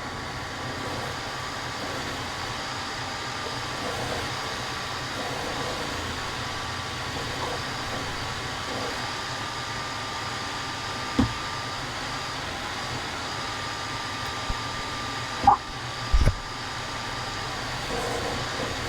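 Steady whirring of a running motor with a thin wavering whine, and a few sharp knocks past the middle.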